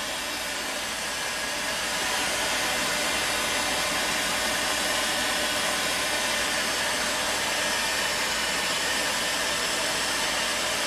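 Stanley STEL670 heat gun running, a steady rush of blown hot air as it heats a plastic PE-X water pipe to soften it for bending. The rush gets a little louder about two seconds in, then holds steady.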